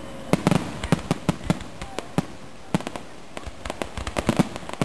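Aerial fireworks shells bursting in quick succession: many sharp bangs and crackles coming close together at an irregular pace.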